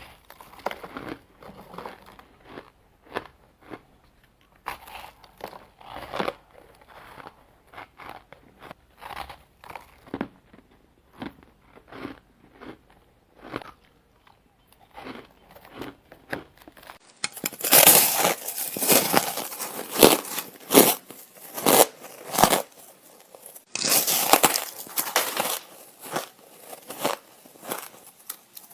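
A person biting and chewing ice: a steady run of sharp crunches, one every half second or so. The crunches grow much louder and come closer together about two-thirds of the way through, with a short pause just before a final loud flurry.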